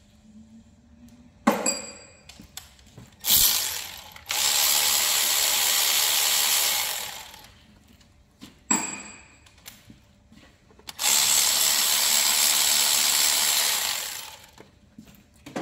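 Power drill running in two spells of about three seconds each, each winding down at the end, with a few sharp tool clicks before and between.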